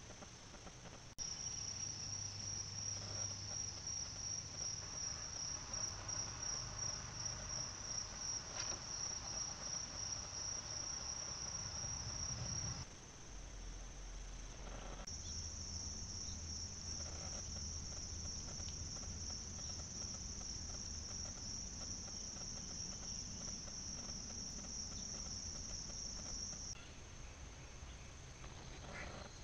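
Insects calling in the evening: a steady, high-pitched, finely pulsing drone that cuts out for a couple of seconds about halfway through, resumes, and turns fainter near the end.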